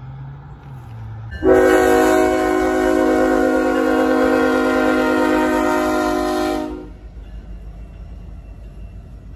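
Diesel locomotive air horn sounding one long, steady blast of about five seconds that starts abruptly, over the low rumble of a passing train that continues after the horn stops.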